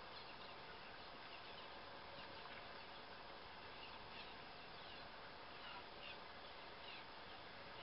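Faint outdoor hiss over open water, with scattered faint, short high calls from seabirds, several of them in the second half.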